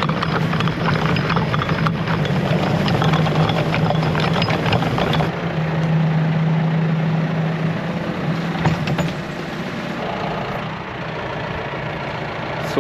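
John Deere tractor engine running steadily as it pulls a chain meadow harrow, with the harrow's chain mesh and tines rattling and scraping over the turf. The rattling thins out about halfway through, leaving mostly the engine hum.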